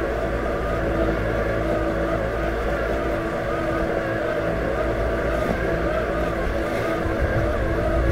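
Robotic lawn mower's electric motors running as it drives across the grass: a steady hum with a higher whine that wavers up and down.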